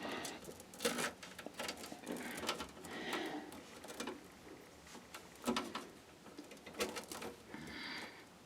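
Scattered clicks, taps and brief rustles of computer cables and parts being handled inside a PC case.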